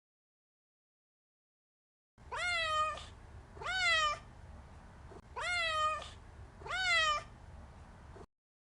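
Silence, then a domestic cat meows four times in two pairs, each meow rising then falling in pitch. The sound cuts off abruptly near the end.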